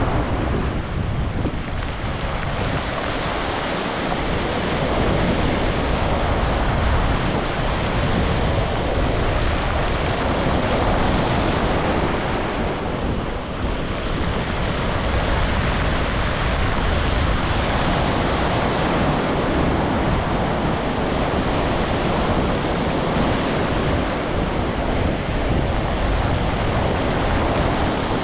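Ocean surf washing onto a beach, a steady rushing noise that swells and eases with the waves, with wind buffeting the microphone.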